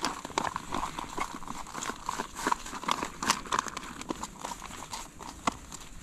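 A utensil stirring a freeze-dried meal in its foil pouch to mix in the hot water, making quick, irregular scraping and crinkling clicks.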